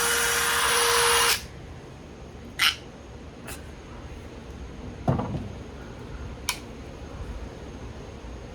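Electric drill motor running at a steady speed, cutting off abruptly about a second in; then a few sharp clicks and a knock as the tool is handled.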